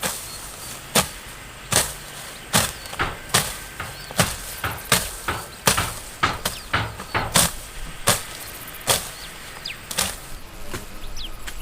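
Repeated sharp chopping strikes of a hand tool, a loud blow about every second with lighter knocks in between.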